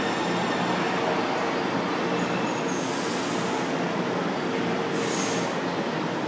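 São Paulo Metro Line 2 train pulling into an underground station platform: a steady rumble of the train's running gear and motors, with two short, sharp hisses about three and five seconds in.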